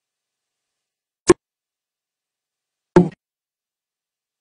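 Two short, sharp knocks, one about a second in and one about three seconds in, with dead silence between them.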